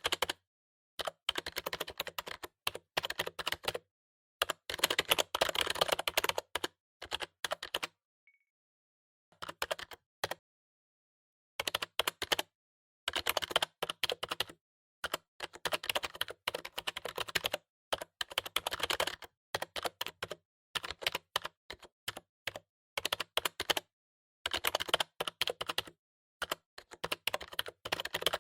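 Typing on a computer keyboard: bursts of rapid key clicks with short pauses between them, the longest pauses about eight seconds in, about ten seconds in and near the end.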